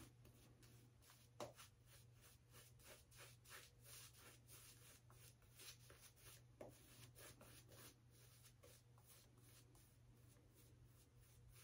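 Faint, quick swishing strokes of a shaving brush working lather over the face and neck.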